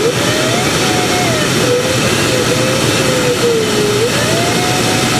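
Airflow rushing past a glider's canopy in flight, with an audio variometer's continuous tone sliding slowly up and down in pitch.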